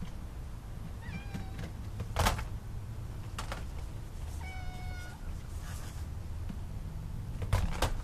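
A domestic cat meowing twice: a short call about a second in, and a longer, steadier one at about four and a half seconds. Two sharp knocks, the loudest sounds, come about two seconds in and near the end.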